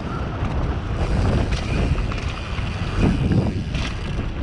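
Mountain bike riding fast down a dirt forest trail: wind rushing over the microphone and tyres rumbling over dirt and leaves, with a few knocks from bumps about three seconds in.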